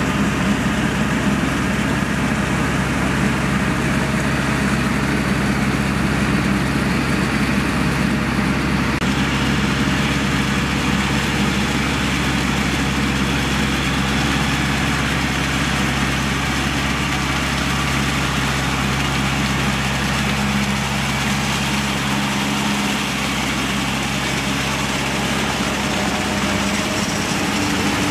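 Tractor engine running steadily under load while driving a rear rotary tiller through flooded rice-paddy mud; the engine note shifts slightly near the end.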